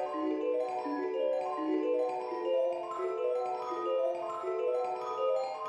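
Background music: a light melody of short, evenly paced pitched notes, about three to four a second.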